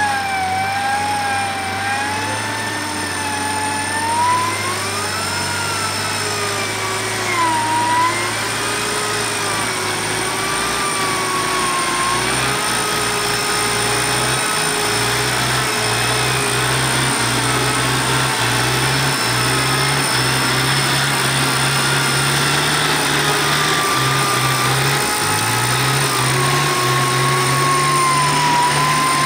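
Off-road 4x4 machinery running: a steady mechanical whine that slowly wanders up and down in pitch, over the low hum of an engine that steps on and off from about twelve seconds in.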